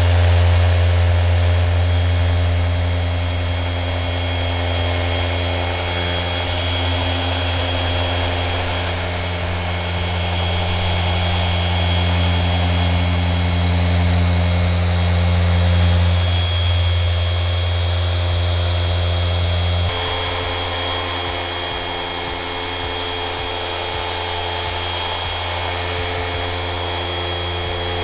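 Flex PXE cordless mini polisher with a 30 mm pad running steadily, polishing car paint along a taped edge: a continuous electric whir with a high whine. Its low hum drops in level about two-thirds of the way through.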